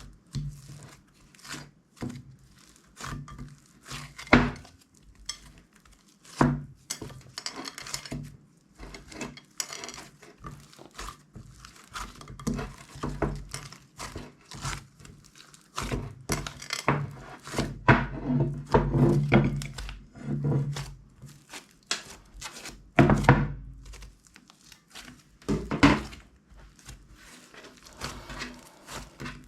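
Slime being squished, stretched and pressed by hand: a steady run of sticky clicks and small wet pops, with a few louder thuds where it is slapped or pressed down.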